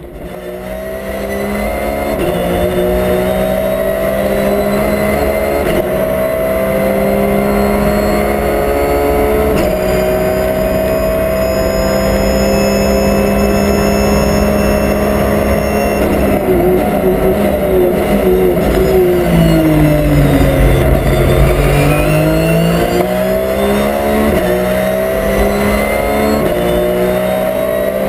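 Porsche 911 GT3 RSR race car's flat-six engine heard from inside the cockpit at speed. It pulls hard through the gears with quick upshifts and holds high revs for several seconds. About two thirds of the way through the revs fall and dip sharply through braking and downshifts, then climb again as it accelerates out.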